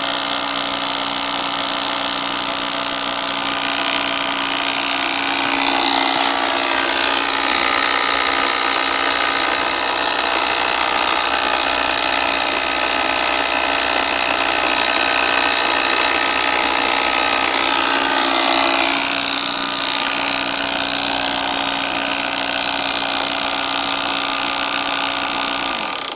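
Portable jump starter's built-in air compressor running with a steady mechanical drone and hiss, a little louder through the middle. It switches on abruptly and cuts off just before the end.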